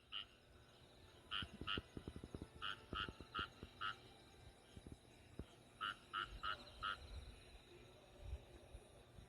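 A frog croaking in short runs of two to four calls, about three calls a second, with pauses between runs. Low, irregular wind rumble on the microphone runs underneath.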